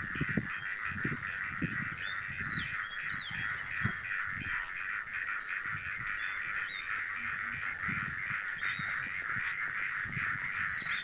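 A steady, rapidly pulsing chorus of calling animals over a high, steady whine, with short bird chirps now and then and irregular soft low thumps underneath.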